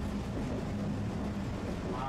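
Tosaden streetcar running along its line, heard from inside the car: a steady rumble with a constant hum.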